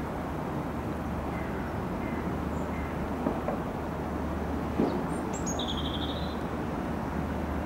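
Steady low drone and rumble of a river cruise ship's engines as it passes close by. There are two brief knocks about three and five seconds in, and a bird chirps briefly just after five seconds.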